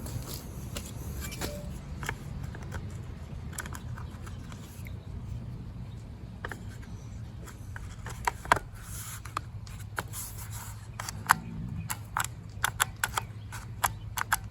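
Hand work on the power tool's repaired cord: sharp clicks and scrapes, coming more often in the second half, over a steady low hum.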